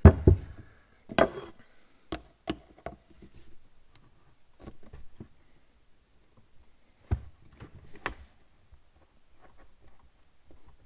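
Irregular knocks and clacks of carburetor parts and tools handled and set down on a bench during a teardown of a Carter BB1 updraft carburetor, the loudest at the start, about a second in and about seven seconds in, with lighter taps between.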